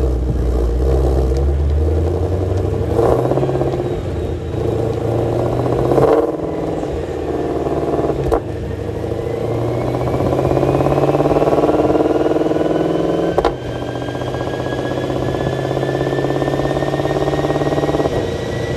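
Supercharged 5.2-litre V8 of a Ford Mustang Shelby GT500 run hard on a chassis dyno, revving with a few brief breaks and a whine that climbs steadily in pitch through the second half before easing off near the end.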